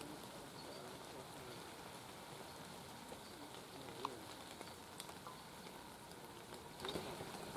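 Quiet woodland ambience: a faint, steady hiss with a few faint, distant wavering calls and a couple of small clicks.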